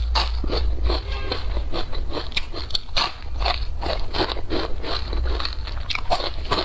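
Close-up crunchy chewing and biting of crisp food: many irregular sharp crunches, several a second, over a low rumble.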